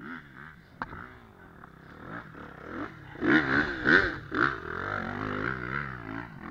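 Enduro dirt bike engine running with the throttle blipped, the revs rising and falling over and over, with three loud revs about halfway through.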